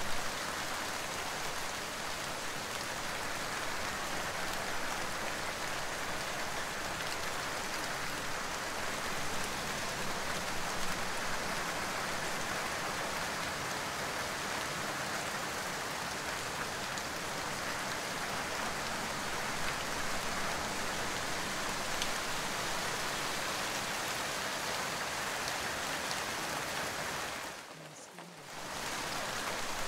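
Steady rain, an even hiss of falling drops. It drops away briefly about two seconds before the end, then resumes.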